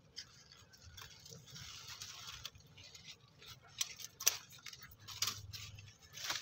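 Gourd-vine leaves rustling as a hand pushes through them, with a few sharp clicks and snaps in the second half.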